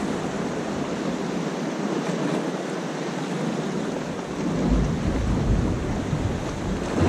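Sea surf breaking and washing around a rock jetty, a dense rushing noise, with wind rumbling on the microphone, heaviest about five seconds in.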